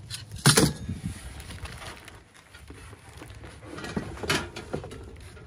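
Cardboard box and plastic bag being handled while items are rummaged: a sharp knock about half a second in, then rustling and scraping, with a few more knocks near the end.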